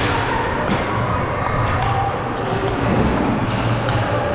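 Deck hockey play: sticks and ball giving sharp knocks and clacks, one every second or so, over steady background noise.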